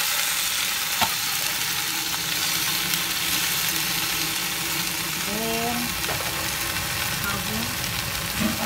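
Wet morning glory (water spinach) hitting hot oil in an enamel pot, sizzling steadily on high heat, with a single sharp clack about a second in.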